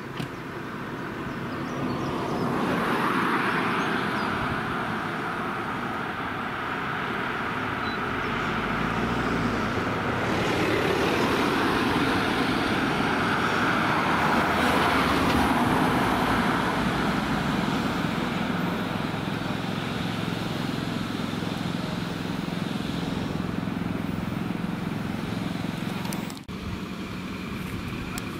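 Road vehicles driving past, engine and tyre noise swelling twice and fading, with an abrupt break shortly before the end.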